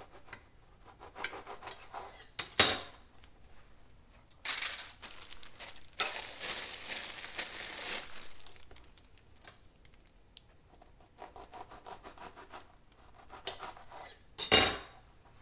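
Kitchen knife sawing through crusty wheat buns, with the halves set down on a foil-lined baking sheet. There is a sharp knock about two and a half seconds in, and a loud thump near the end.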